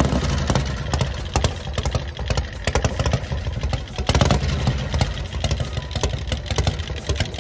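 Harley-Davidson chopper motorcycle engine idling with a pulsing low exhaust beat and irregular sharp pops.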